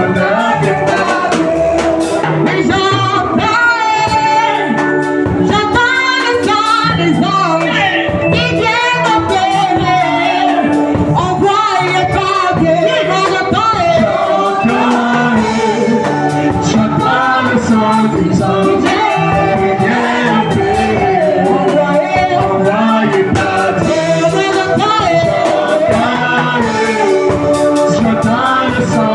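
Gospel worship song: singing voices over a band with a steady beat and bass line.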